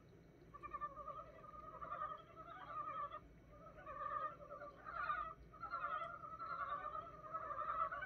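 A chorus of frogs, newly woken in early spring, calling over one another with rapid, pulsed croaks. The chorus swells and dips in loudness.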